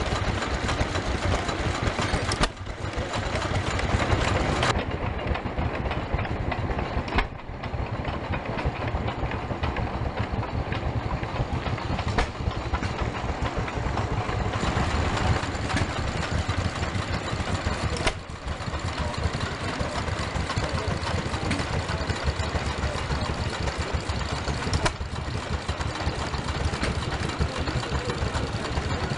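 Vintage stationary engines running steadily, with a dense, even run of exhaust beats. The sound breaks off and changes abruptly several times.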